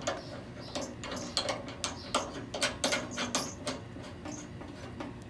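Handling noise from the grill being moved: a string of light clicks and knocks, irregular and several a second, that die away after about three and a half seconds.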